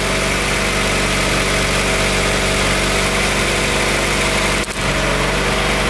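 Turbocharged Honda B18 four-cylinder engine in a DC2 Integra Type R idling steadily through its exhaust. The exhaust gaskets have been replaced, and there is no exhaust leak.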